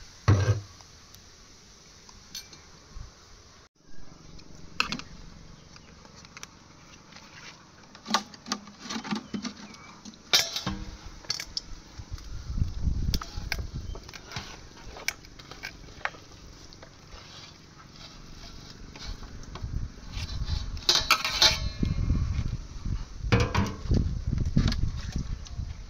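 Irregular clatter of metal utensils knocking and clinking against pots and dishes during cooking, with bursts of busier handling noise now and then.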